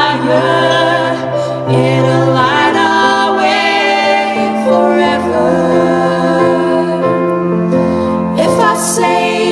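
Music: several voices singing in harmony over sustained low notes, with no words picked out.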